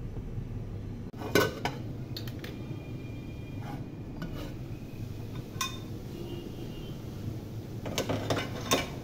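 Aluminium pot lid clinking against the pot as it is handled and lifted off: scattered sharp metallic clinks, one with a brief ring about halfway through, and a quick cluster of clinks near the end.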